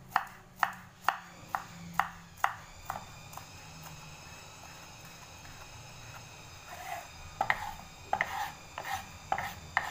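Kitchen knife chopping spring onions on a wooden cutting board: sharp knocks about two a second that stop about three seconds in, then a few softer knocks near the end.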